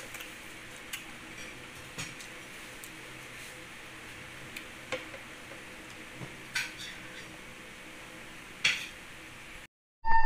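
Kitchenware clinking: several separate light clicks and knocks of metal and crockery over a steady low hiss, the two loudest knocks in the second half. The sound cuts off near the end and a sustained ringing musical tone begins.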